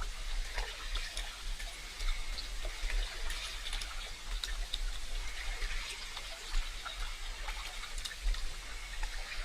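Water splashing and trickling close by, with many small drips and ticks over a steady low rumble.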